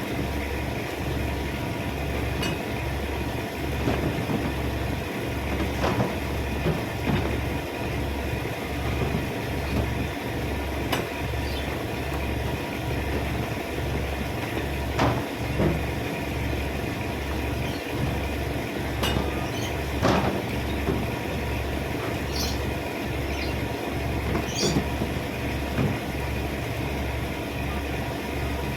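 Steady low engine or machinery rumble, pulsing rhythmically, with scattered clicks and knocks over it.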